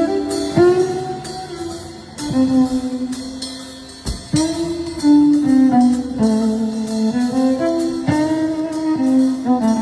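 Live band playing a slow jazz tune: a melody of long held notes that steps up and down, over plucked-string chords and light drums.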